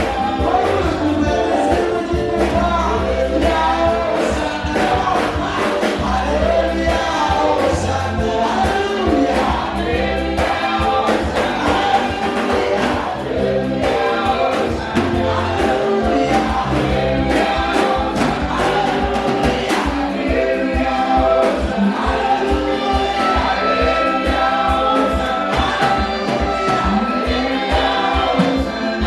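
Gospel worship music: a choir singing over instrumental backing with deep sustained bass notes and a steady beat that becomes quicker and denser about halfway through.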